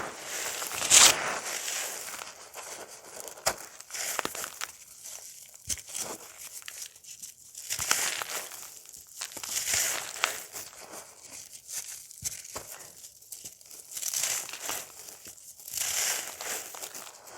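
Dry, crunchy cake being crumbled: a run of crisp crunching, swelling afresh about every two seconds.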